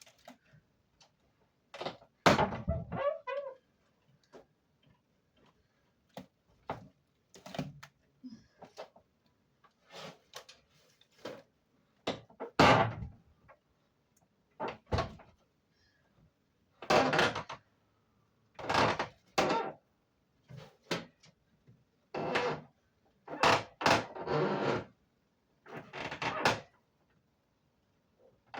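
Irregular clunks, knocks and scraping rattles of plastic and metal parts being handled while fitting a window air conditioner, each lasting under a second, with short quiet gaps between them.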